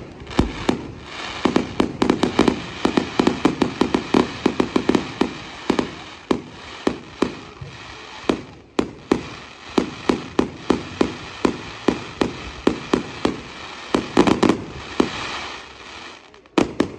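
Fireworks display: a rapid run of sharp bangs from aerial shells, several a second, over a steady hiss, with a last pair of bangs near the end.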